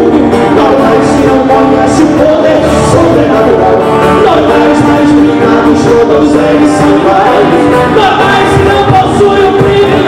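Live Christian worship song sung in Portuguese by a male lead voice with a female voice, over strummed acoustic guitars including a twelve-string, amplified through microphones.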